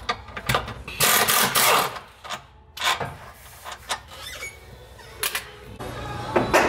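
Ratchet turning a bolt into the rear leaf spring mount of a Mercedes Sprinter, in rapid clicking runs, the longest about a second in, with a few short metal clinks between.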